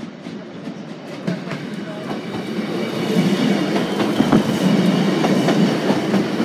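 Class 156 diesel multiple unit passing at close range, its wheels clattering over the rail joints and the crossing. It grows steadily louder as the train draws level.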